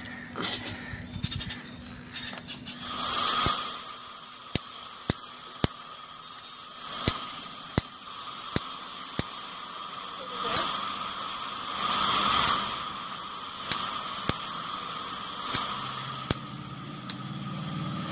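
Brazing torch flame hissing steadily from about three seconds in, swelling louder a few times, with sharp clicks about once a second.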